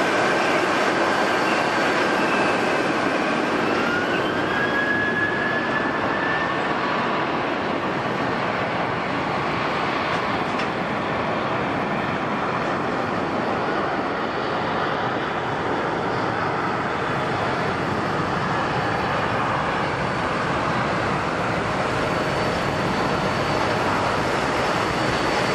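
Jet airliner engines running with a steady rush and a high whine that rises in pitch about four seconds in, then fades into the noise.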